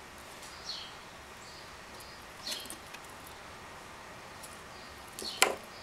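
Baby ebony chinchilla moving about its cage, with faint scratching, a few soft high squeaks and a sharp knock on wood about five and a half seconds in.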